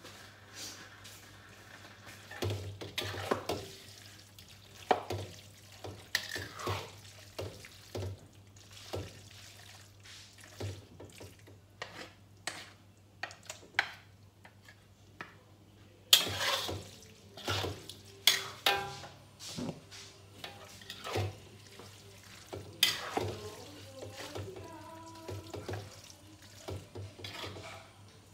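Wooden spatula stirring and tossing noodles in a wok, with irregular scrapes and clacks against the pan, busier in the second half, over a steady low hum.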